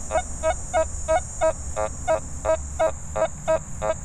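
Nokta Fors Core metal detector's audio response: short mid-pitched beeps about three times a second as the coil passes over a dime lying under a rusty nail, the coin's tone coming through the iron. A steady cricket trill sounds behind.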